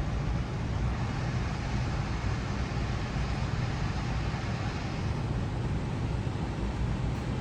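Steady rumble and hiss of a passenger train heard from inside a dome car; the higher hiss thins out about five seconds in.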